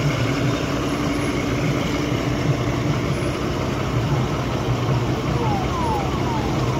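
MSRTC Shivshahi bus engine idling with a steady low hum.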